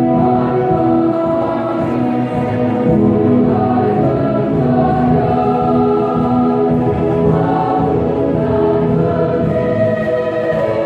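Choir singing a slow piece in long held notes.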